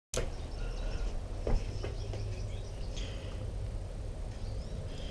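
Faint bird chirps over a steady low rumble of background noise, with one sharp knock about a second and a half in.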